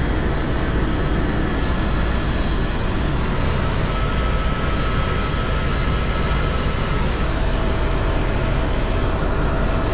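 Helicopter engine and rotors running at a steady drone, with a few faint steady tones above it.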